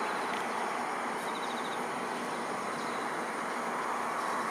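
Jet engines of an Embraer E-Jet airliner on landing approach, heard from the ground as a steady, even rushing noise.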